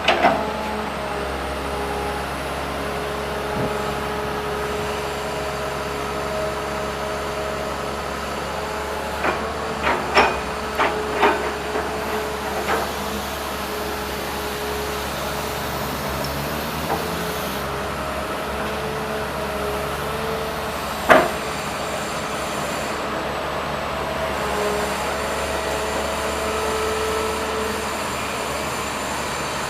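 Komatsu PC200-8MO excavator running, its diesel engine and hydraulics giving a steady sound with a whine that shifts in pitch. A quick run of metal clanks comes about ten seconds in, and a single louder clank around twenty-one seconds in.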